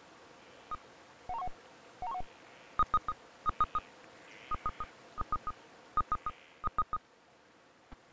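Short electronic beeps, keypad-like: a few scattered lower beeps, then six quick runs of three identical higher beeps, evenly paced.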